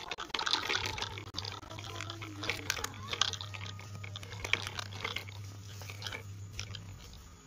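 Toy model Mahindra tractor towing a small metal trolley over dirt and stones: irregular crunching and rattling of its tyres and the tin trolley on gravel, over a low steady hum from its small electric motor that stops near the end.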